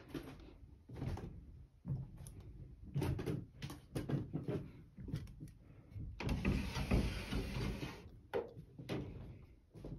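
Footsteps climbing wooden stairs, a series of separate thumps, then a sliding fusuma door rumbling open along its track for about a second and a half, starting about six seconds in.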